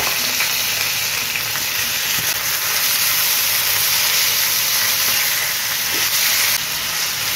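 Raw chicken strips sizzling on high heat in oil and garlic in a non-stick frying pan, a steady frying hiss, while a silicone spatula stirs them. The sizzle eases slightly near the end.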